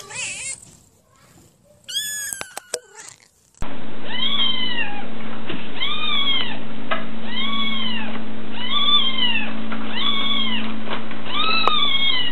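Kittens meowing: a high meow about two seconds in, then, after a cut, a small kitten mewing over and over, about six times a little over a second apart, over a steady background hum.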